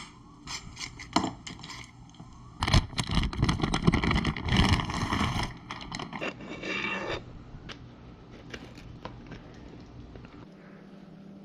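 Clicks, knocks and scraping of hand tools and metal parts being handled while a dirt bike's handlebars are swapped; the busiest stretch runs from about three to five and a half seconds in, then it turns quieter with scattered clicks.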